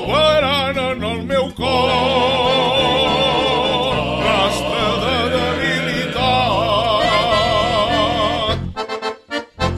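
Havanera song: singing with strong vibrato on long held notes over instrumental backing. Near the end the voice drops out and the backing turns to short rhythmic chords.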